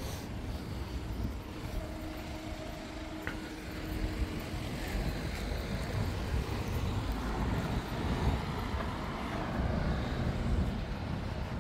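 Road traffic going by, a continuous low rumble of vehicles that grows louder from about four seconds in.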